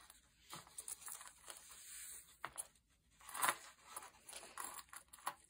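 Handling of silver-toothed zipper tape and its metal slider with an elephant zipper pull: soft, scattered rustles and small clicks, with a couple of louder scratches a little past the middle.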